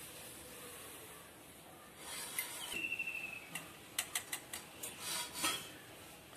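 A steel spoon tapping and clicking against a steel mixer-grinder jar while chilli and turmeric powder are spooned in, several sharp taps in the second half over a faint hiss. A brief thin high squeak is heard about three seconds in.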